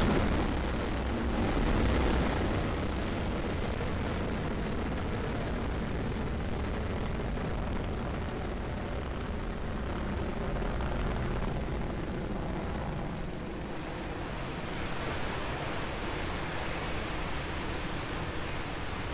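Steady noisy rumble of the Falcon 9 first stage's nine Merlin engines during ascent, with a fine crackle, slowly fading as the rocket climbs away.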